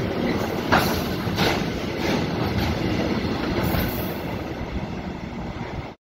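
Container freight train's wagons rolling past close by: a steady rumble of wheels on rail, with two sharp clacks about three-quarters of a second and a second and a half in. The sound cuts off suddenly near the end.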